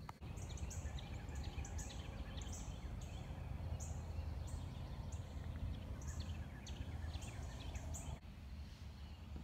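A small bird chirping outdoors: short high notes repeated about twice a second over a steady low rumble.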